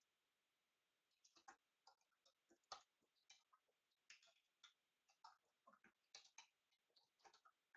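Near silence broken by faint, irregular small clicks, scattered unevenly from about a second in.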